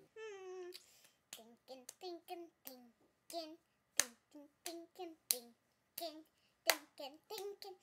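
A young girl clapping her hands about twice a second in an uneven rhythm, singing short notes between the claps.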